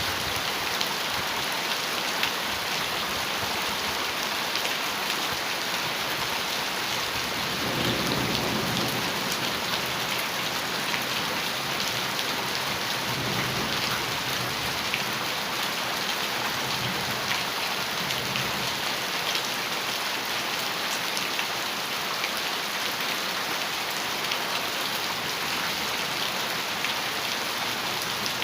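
Heavy rain falling steadily on a metal roof. Low thunder rumbles about eight seconds in, with fainter rumbles a few seconds and about ten seconds later.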